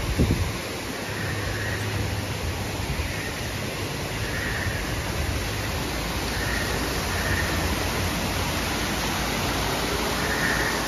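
Steady rush of flowing water from man-made waterfalls and streams, with a brief low thump right at the start.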